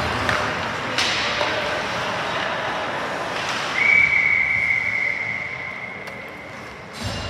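Referee's whistle blown in one long, steady blast of about three seconds, over crowd and rink noise. A sharp crack sounds about a second in.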